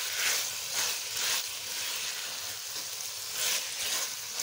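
Sliced capsicum in a tomato-onion masala sizzling as it fries in a pan. A spatula stirs and scrapes through it, with louder swishes every second or so.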